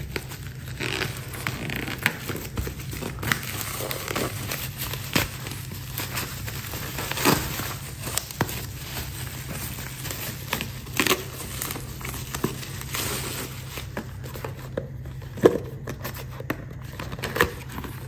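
Plastic bubble wrap being pulled off a small parcel by hand: irregular crinkling and rustling with a few sharper crackles and tearing, and a cardboard box being handled near the end.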